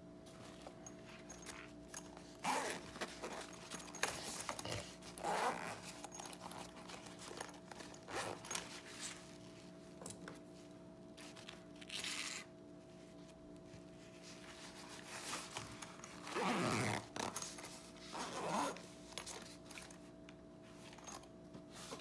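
Zipper of a fabric pencil case pulled in several short strokes, with mechanical pencils clicking and rattling against each other as they are handled in the case.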